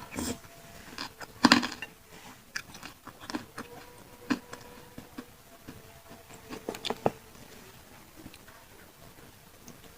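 Close-miked eating of pentol, Indonesian meatballs in chili sauce: irregular bites and chewing with small mouth clicks, the loudest bite about a second and a half in.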